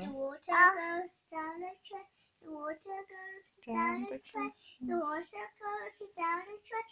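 A young girl singing a short children's phonics song, one syllable after another with brief gaps.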